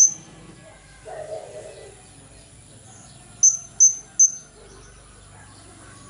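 Blue-crowned hanging parrot giving short, sharp, high-pitched call notes: one right at the start, then a quick run of three about half a second apart midway. A brief, fainter lower-pitched sound comes about a second in.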